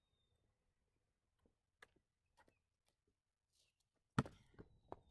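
A basketball bouncing once, sharply, on a concrete driveway about four seconds in, followed by a couple of quieter thumps. Before it, only faint scattered taps.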